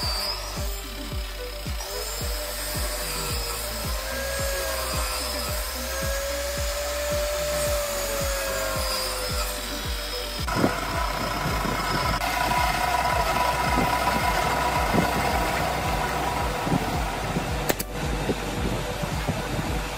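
Background music with a steady beat over the sound of a compound miter saw with its blade spinning as it cuts wooden moulding. About ten seconds in, the sound changes to a denser, brighter steady noise.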